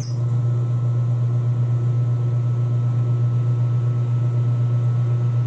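Metal lathe running with its chuck spinning freely and no cut yet taken, a steady low hum with a fast, even flutter in loudness.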